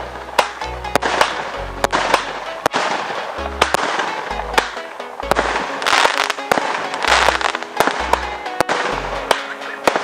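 Fireworks going off in a rapid, irregular series of sharp bangs with crackling between them, over background music with a bass line.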